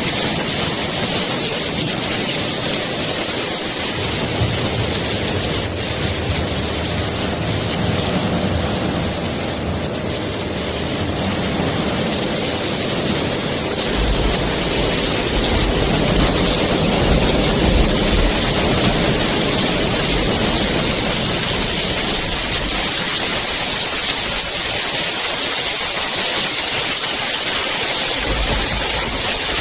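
Heavy rain falling steadily, a dense even hiss. A low rumble swells in and out beneath it several times.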